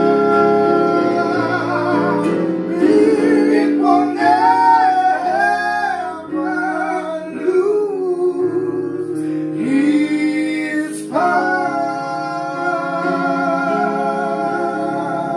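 A man singing a gospel song, accompanied by sustained chords on an electronic keyboard. Near the end he holds one long note with vibrato.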